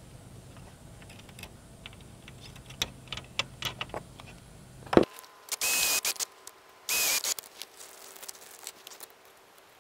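Faint clicks and handling noise, then a Ryobi cordless drill runs in two short bursts about a second apart, drilling pilot holes for the hinge screws through the storm door's hinge rail.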